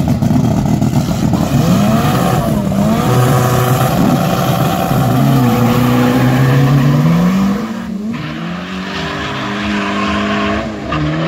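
Two turbocharged VW Gol drag cars revving up and down at the start line, then launching and accelerating away down the strip about seven to eight seconds in, their engines rising through the gears and a little quieter as they go.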